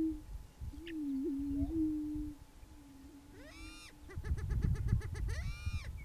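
Greater prairie chickens booming: two low, hollow, hooting moans about a second and a half each, with a small hiccup in the pitch partway through, in the first half. After that come high whooping calls that rise and fall, about three and a half and five and a half seconds in, with a quick run of clucking notes between them. This is the males' courtship display.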